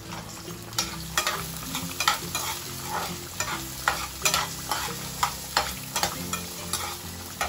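Saba banana halves deep-frying in oil and caramelizing sugar in a cast-iron pan, sizzling steadily, while a metal spoon scrapes and taps in a second skillet about two or three strokes a second.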